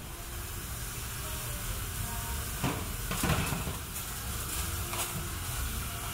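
Restaurant kitchen noise: a steady hiss, with a few short knocks and clatters about halfway through.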